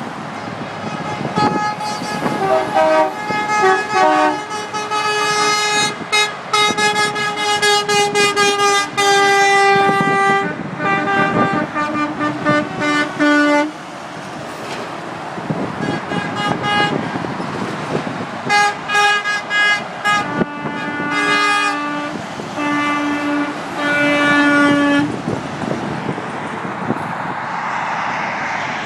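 Horns of tow trucks passing in a procession, honking over and over in short toots and long blasts of several pitches, over the rush of highway traffic. The honking thins out around the middle, then picks up again with a lower horn sounding in long blasts, and gives way to traffic noise alone near the end.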